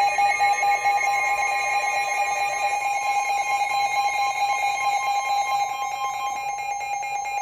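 Weather-radio emergency alert tone: a steady, loud electronic alarm tone sounding without a break, the signal that a new warning message is about to be read.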